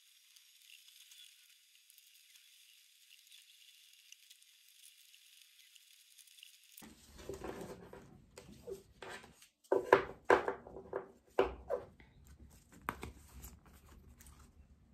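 Stiff cardboard pieces handled and stacked on a desk: irregular rustles, taps and clicks start about seven seconds in and are loudest around the ten-second mark, after only a faint hiss.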